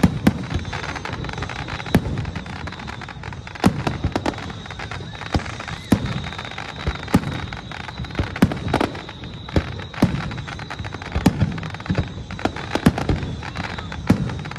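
Aerial fireworks show: shells bursting in sharp booms at irregular intervals, some in quick clusters, over a continuous low rumble.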